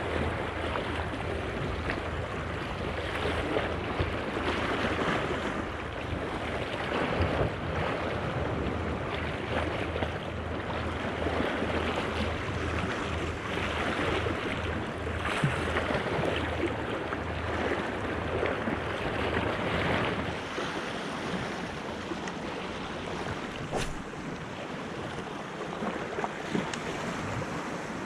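Small sea waves washing against a rocky shore, with wind rumbling on the microphone until it dies down about twenty seconds in. A single sharp click sounds near the end.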